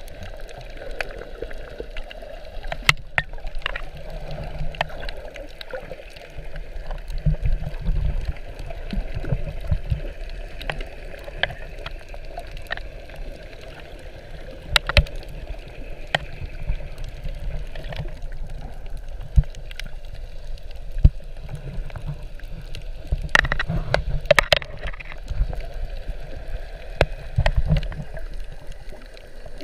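Underwater sound picked up by a GoPro in its waterproof housing while snorkeling over a coral reef: low, muffled water movement and gurgling with scattered sharp clicks throughout.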